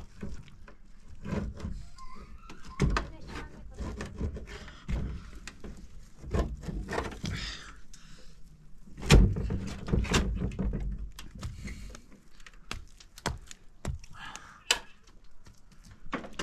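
Irregular knocks and heavy thumps of objects being handled or struck, the loudest about nine seconds in.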